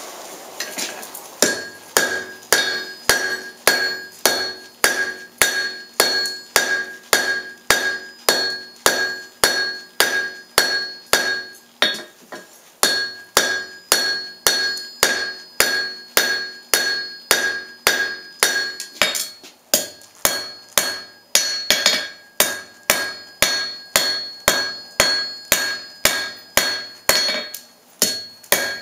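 Hand hammer striking hot steel bar stock on an anvil, about two blows a second, each blow ringing out with a clear metallic tone. The smith is drawing out a taper in 3/8-inch square stock. The blows begin about a second and a half in and pause briefly about twelve seconds in.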